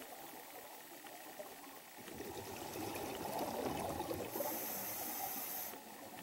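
Scuba diver's exhaled air bubbling out of a regulator underwater: a gurgling rush of bubbles that swells up about two seconds in and stops shortly before the end, with a high hiss in its last second or so.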